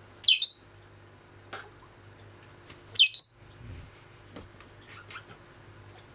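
Lovebird giving two short, loud, shrill squawks about three seconds apart.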